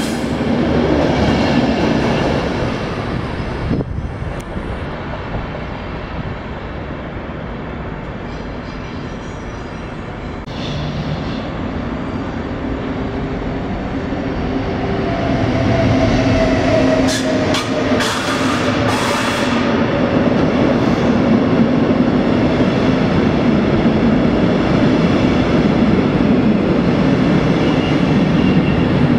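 Passenger trains running through a station: a coach rolling past close by at first, then an electric locomotive with double-deck coaches coming in and rolling past, growing louder through the second half. A whining tone that sinks slightly in pitch and a few sharp clicks come near the middle.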